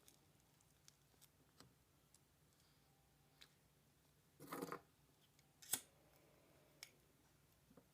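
Faint close-up handling of a joint and its rolling paper: scattered light ticks, a short papery rustle a little past halfway, and one sharp click about a second later, the loudest sound.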